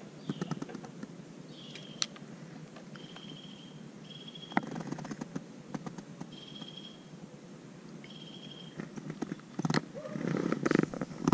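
Spinning rod and reel being cast and worked by hand, with a few sharp clicks. Short, high, steady whistle-like notes repeat every second or two in the background.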